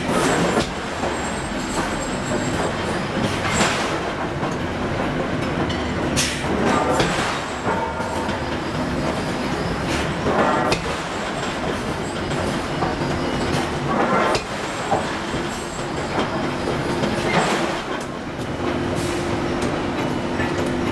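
Hydraulic forging hammer striking hot steel, a heavy blow every few seconds, over a steady hum from the hydraulic machinery.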